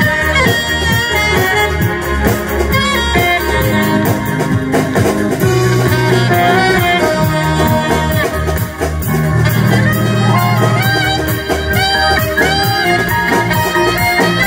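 Alto saxophone playing the melody of an upbeat dance tune over band backing with bass and a steady beat.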